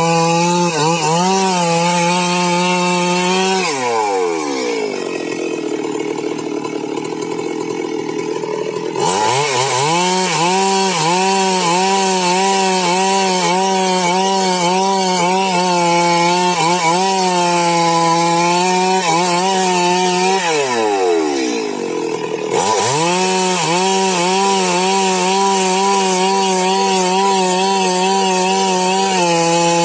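Stihl MS 382 two-stroke chainsaw ripping a log lengthwise, running at full throttle under load with its pitch wavering as the chain bites. Twice the throttle is let off and the engine falls back to a lower, steady idle: for about five seconds starting some four seconds in, and for about two seconds past the two-thirds mark. Each time it revs straight back up into the cut.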